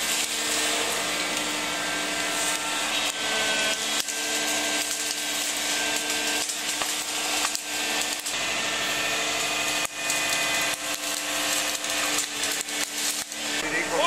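Atlas wheeled felling excavator running steadily, its engine and hydraulics humming while the felling head handles a felled tree, with repeated cracking and snapping of branches and wood.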